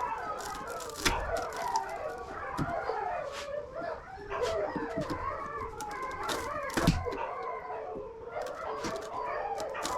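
A chorus of several animals calling together, overlapping wavering calls that keep going, with two sharp knocks about a second in and near seven seconds.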